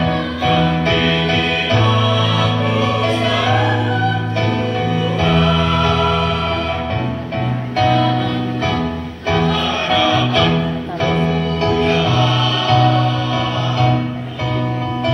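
A mixed choir of men and women singing together in several parts, over held low notes.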